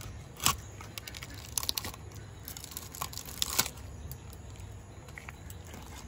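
Crunching and tearing as a gagra tengra catfish's head is pressed down and split against an upright boti blade, with several sharp cracks as the bone and gristle give way, the loudest about half a second in and again about three and a half seconds in.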